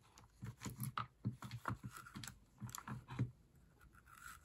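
Irregular small clicks, taps and scrapes of a screwdriver working the terminal screws of a plastic safety block as a mains cable is wired into it, with the rustle of a work glove.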